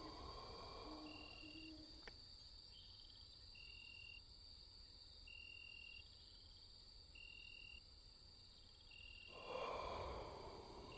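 Faint night ambience of insects: a steady high insect drone with a short cricket-like chirp repeating about every one and a half to two seconds. A single click comes about two seconds in.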